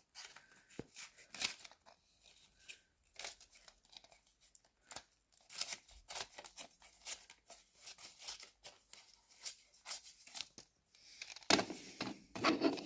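Scissors cutting a piece of newspaper with a series of short, faint snips, with louder paper rustling near the end.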